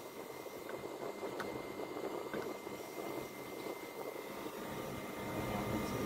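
Sharp R22 air conditioner's outdoor unit running steadily: compressor and condenser fan, with a thin steady high tone above the hum. A low rumble grows stronger in the second half.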